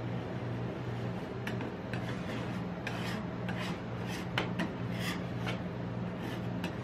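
Metal spatulas scraping leftover ice cream across the steel cold plate of a rolled-ice-cream machine, in a series of short rasping strokes that come quicker from about three seconds in, over a steady low hum.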